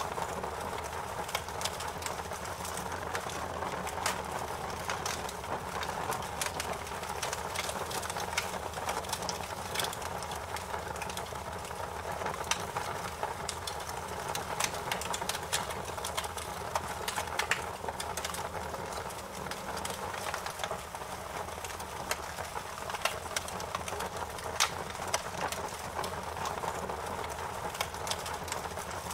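Wood fire crackling in a fireplace: a steady hiss with frequent, irregular sharp pops and snaps.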